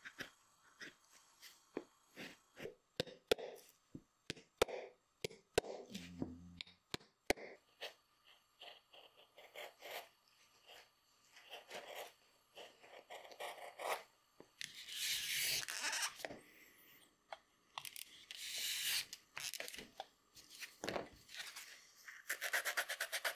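A metal scraper blade working the edge of a leather shoe sole and heel by hand: short, sharp scraping clicks at first, then longer rasping strokes that grow louder from about fifteen seconds in. A fast, even rasping starts near the end.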